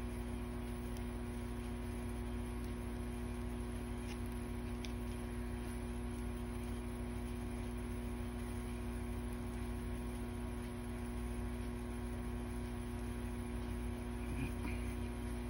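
Steady electrical mains hum, with a few faint clicks of knitting needles.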